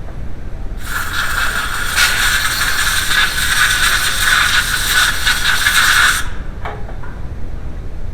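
Gas escaping under pressure in a steady hiss with a whistling tone in it, starting about a second in and cutting off sharply about five seconds later.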